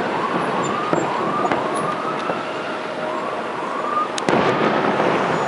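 Fireworks going off, with sharp bangs, the loudest about four seconds in, over a steady rushing noise. Repeated short whistles rise in pitch and level off.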